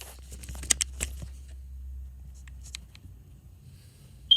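Scattered clicks and rustling over a low rumble, then near the end a single short, high chirp from a smoke detector, the signal that its battery is low.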